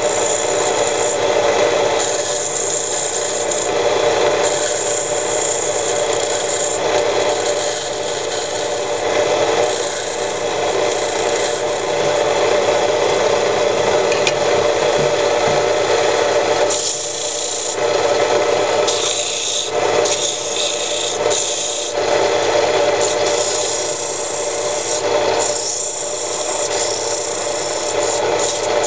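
Homemade belt-driven wood lathe running steadily while a hand-held tool rubs and scrapes against the spinning wooden workpiece, giving a dry rasping noise. The rasping lets up briefly a few times in the second half.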